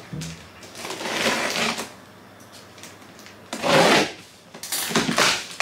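Packing tape being slit and pulled from a cardboard shipping box, heard as three noisy scraping strokes, the loudest about three and a half seconds in.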